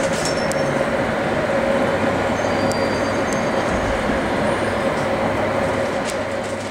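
London Underground Jubilee line train (1996 Stock) running through Neasden station, heard from inside the carriage: a steady rumbling running noise with a steady whine.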